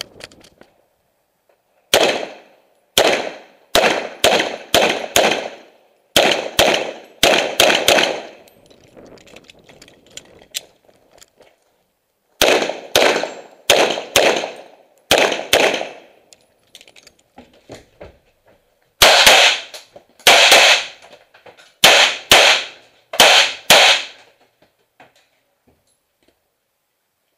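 Semi-automatic pistol fired at close range in quick pairs: several strings of loud shots, each string a few seconds long, with short pauses between them. Faint knocks fall in the gaps.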